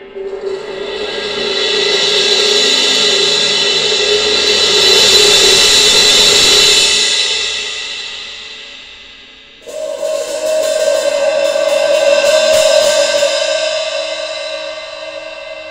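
Soultone cymbals rolled into two long washing swells, each building up and then dying away. The first builds from the start, and the second comes in suddenly a little under two-thirds of the way through, ringing on a higher, different cymbal.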